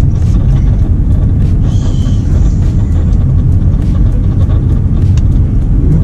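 Steady low rumble of a car's engine and road noise, heard from inside the cabin.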